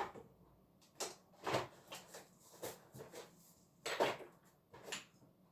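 Kitchen drawers and cupboard doors being opened and shut while someone rummages through them: about six short knocks and clatters, with a close pair about four seconds in.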